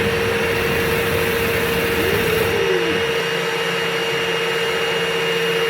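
Dryer-vent cleaning machine running steadily with a constant whine. A short tone rises and falls about two seconds in.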